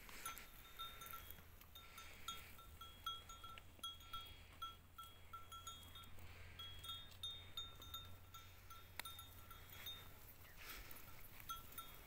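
Faint, irregular clinking of bells worn by grazing cattle: many short notes at the same few pitches, with scattered soft clicks.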